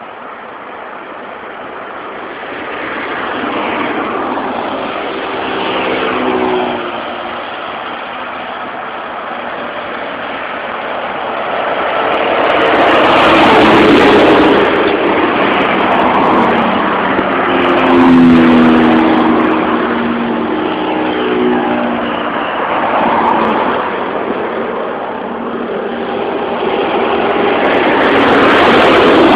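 Road traffic on a busy highway: cars and trucks passing one after another, each swelling and fading away. The loudest passes come near the middle, again a few seconds later and at the end, and engine hum shows in a couple of them.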